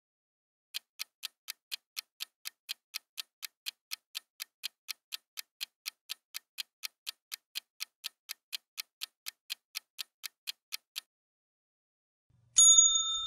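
Countdown-timer sound effect: clock-style ticking at about four ticks a second for ten seconds, then stopping. Near the end a single bright bell ding rings out and fades, marking time up.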